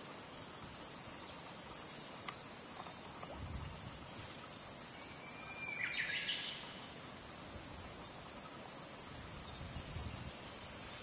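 Steady, high-pitched insect chorus, with a brief chirp about six seconds in.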